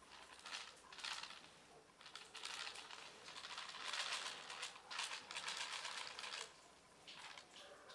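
A cat crunching dry food: irregular bursts of crisp, clicky chewing, with a short pause near the end.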